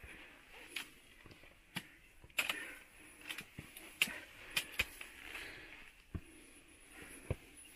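Footsteps of a hiker climbing a steep granite rock trail: uneven sharp clicks and scuffs of boots on rock, about one or two a second, over a faint steady hiss.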